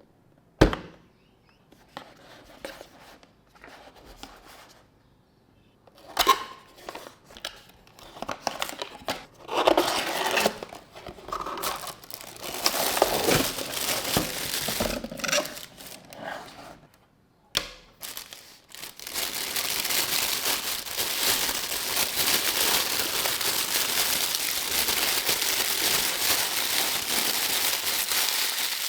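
Plastic or paper packaging being handled and crinkled, with a few sharp knocks at first. The crinkling grows busier, then turns into a steady, continuous rustle over the last ten seconds.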